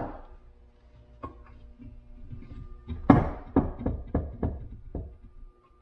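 Knocks from a Honda K-series transmission case being handled on a workbench. There is a knock right at the start, then a loud knock about three seconds in followed by about five lighter ones, roughly three a second, fading out.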